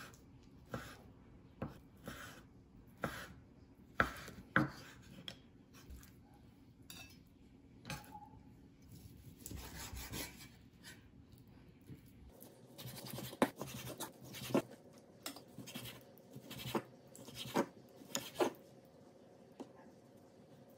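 Chef's knife slicing raw salmon on a wooden cutting board, the blade knocking against the board at irregular intervals, roughly one cut a second.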